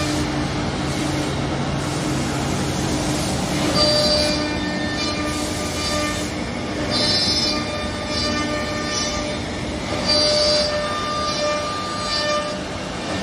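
Woodmaster WM-1500C4 four-head CNC mortising machine running, its router spindles whining steadily while the bits cut mortises. The whine grows louder and brighter in passes about every three seconds.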